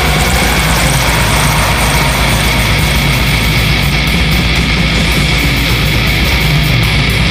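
Lo-fi death metal: heavily distorted electric guitars in a dense, unbroken wall of sound, recorded on a phone.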